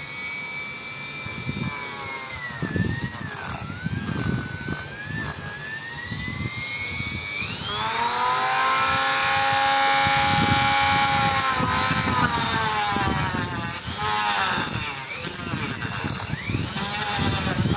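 Power tool motor spinning a mini HSS circular saw blade, its whine sagging in pitch as the blade bites under load and rising back up when it is freed, then holding at a high speed for several seconds with rough spells toward the end.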